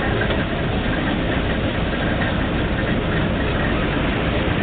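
Failling 1250 drilling rig running, its engine holding a steady, even din.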